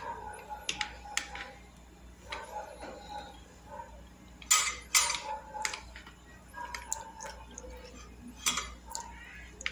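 Metal spoon clinking and scraping against a bowl in irregular strokes as paneer cubes are stirred into a thick sauce, with two sharp clinks, the loudest, about halfway through.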